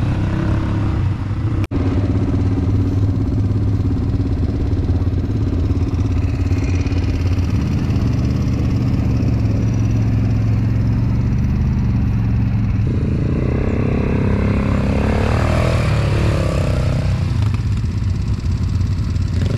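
ATV engines running while riding along a dirt trail, a steady close drone. It cuts out for an instant about two seconds in, and its tone shifts past the middle, with more hiss on top for a few seconds.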